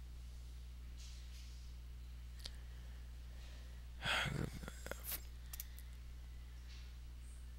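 Steady low electrical hum picked up by a headset microphone. About four seconds in comes a brief burst of noise, then a few sharp clicks.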